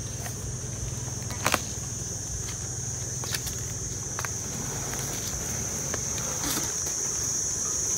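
Steady high-pitched drone of insects, a little louder near the end, over a low steady hum, with a few sharp clicks and knocks, the loudest about a second and a half in.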